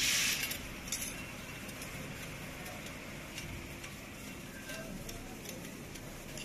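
Small metal parts of a sheet-metal airplane wind spinner being handled: a short scrape right at the start, a click about a second in, then a few faint ticks as a screw is fitted through the wing.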